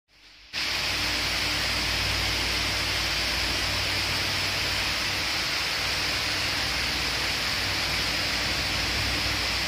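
Steady machine-shop noise: an even hiss with a low hum underneath, starting abruptly about half a second in.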